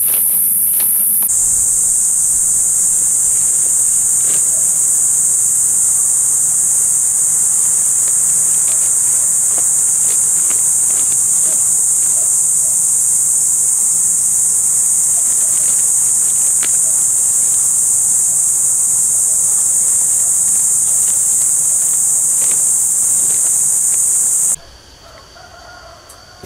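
Loud, steady, high-pitched drone of insects in an orchard, with a few faint knocks beneath it. It cuts off suddenly near the end, leaving much quieter outdoor ambience.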